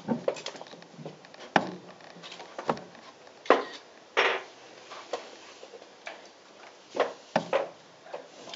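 Scattered short wooden knocks and clicks as a model field cannon on its spoked wheels is handled and adjusted on a wooden bench. The sharpest knocks come about one and a half and three and a half seconds in.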